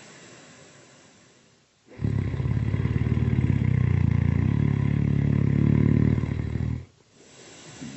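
Really loud snoring: a long, low, buzzing snore of about five seconds starts about two seconds in. It sits between softer, breathy breaths before and after it.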